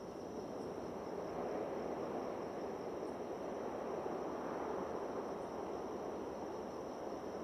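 Steady outdoor background noise, a low even hiss with a faint thin high tone held above it.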